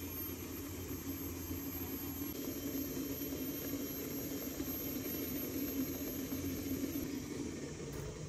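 A pot of water boiling hard on a gas burner beneath a woven bamboo steamer, a steady low rumble with a hiss over it.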